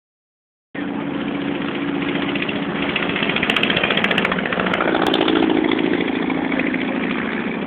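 Piston engine and propeller of a single-engine high-wing Cessna running as the plane rolls past on the runway. The engine sound grows louder as it passes and eases a little afterwards.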